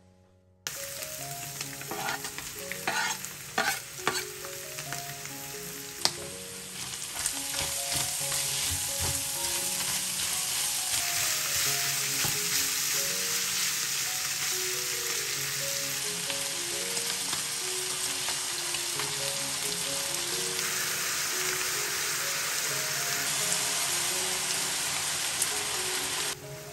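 Minced meat, bacon and chopped onion sizzling in a stainless-steel frying pan as they are stirred with a wooden spoon. There are a few knocks in the first seconds, then a steady loud sizzle that drops off sharply near the end.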